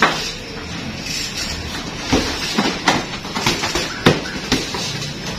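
Boxing gloves landing punches in sparring: a sharp smack at the start, then a flurry of about five more from about two seconds in.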